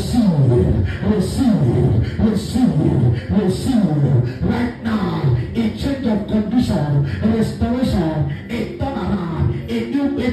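A man's voice praying loudly and rapidly in a rhythmic, sing-song chant, its pitch sweeping down again and again about once a second.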